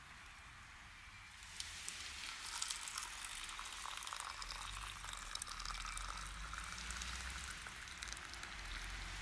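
Food sizzling as it cooks over a campfire: a dense, fine crackle that starts about one and a half seconds in and then keeps on steadily.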